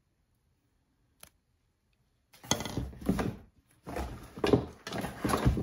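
Craft items and packaging being handled: rustling and light knocks that start about two seconds in, after a stretch of near silence.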